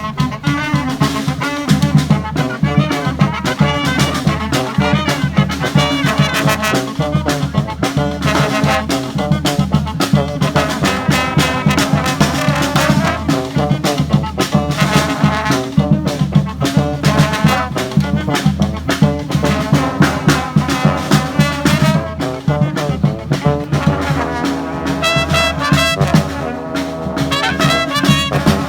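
Brass band playing lively music, horns over a steady low bass line with a regular beat.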